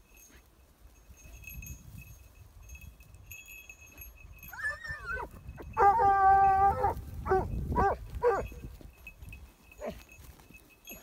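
A dog giving voice: a rising-and-falling yelp, then a loud held howl-like bay of about a second, followed by two short barks and a faint one near the end.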